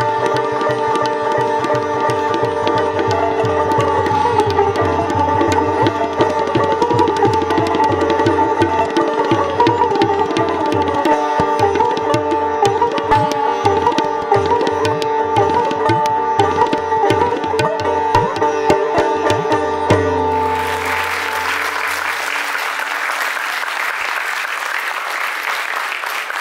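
Sitar and tabla playing Hindustani classical music: quick tabla strokes over the ringing sitar strings. The music stops about twenty seconds in and the audience applauds at the close of the piece.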